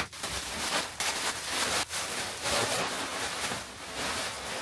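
Plastic stretch wrap being cut and pulled off a machine cabinet and bunched up by hand, crinkling and rustling irregularly.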